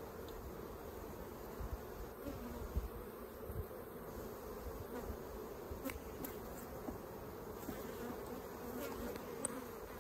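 A steady hum of many honeybees buzzing around an opened hive, with a few light clicks about six seconds in.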